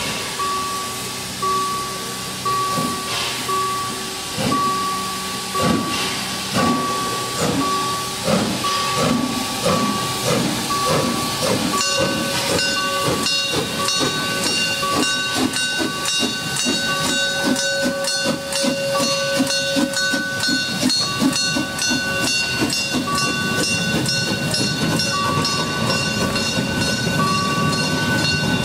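Class 99.32 narrow-gauge steam tank locomotive 99 2321 pulling away, its exhaust chuffs coming faster and faster, over a warning tone that beeps on and off. About twelve seconds in, steady high-pitched tones set in and hold over fast, even chuffing.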